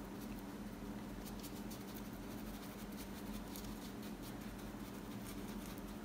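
Paintbrush dabbing and scrubbing paint onto canvas: a run of faint, scratchy brush strokes over a steady low hum.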